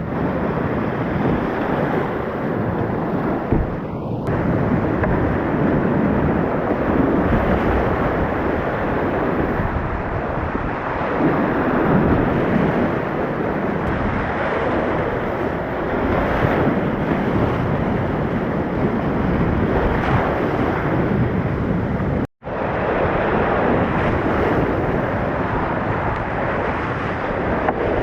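Rushing whitewater of a mountain creek, a steady rush of water noise. It cuts out for an instant about 22 seconds in.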